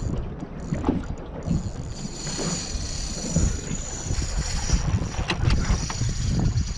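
Wind buffeting the microphone in an irregular low rumble, with sea water slapping against the hull of a small aluminium boat.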